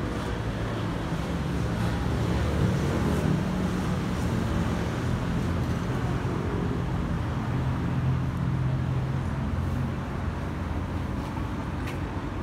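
Boeing 737-800's CFM56-7B jet engines passing overhead: a steady low rumble with slowly drifting tones, loudest in the middle and easing off near the end.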